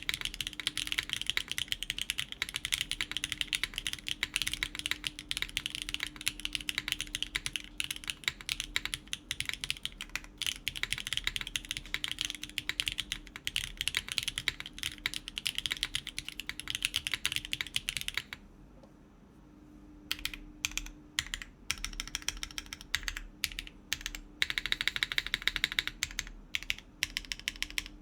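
Typing on a gasket-mounted mechanical keyboard with BSUN Tai Chi tactile switches, an FR4 plate and GMK keycaps: a fast, dense run of keystrokes that breaks off about two-thirds of the way through, then picks up again in shorter, sparser bursts.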